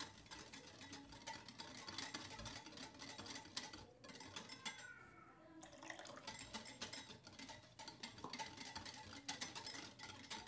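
Wire whisk beating yogurt in a glass bowl: quick, repeated clicking and scraping of the metal wires against the glass, easing off briefly about halfway through. The yogurt is being whisked with a little water into a thick, lassi-like batter.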